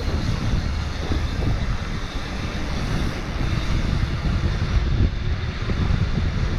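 Wind buffeting an action camera's microphone over the rumble and chatter of a downhill mountain bike's tyres running fast over a dirt trail. It is a steady, loud noise with many small irregular knocks.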